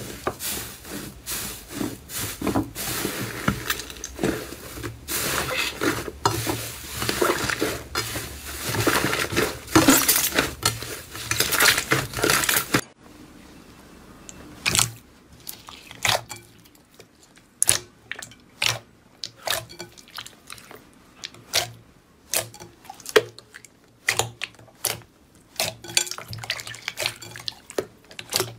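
Hands squeezing and kneading slime. First a puffy, air-filled pink slime gives a dense, continuous crackle of tiny air pops. About 13 s in the sound changes to clear blue slime pressed in a glass bowl, with sparser separate wet squelches and pops.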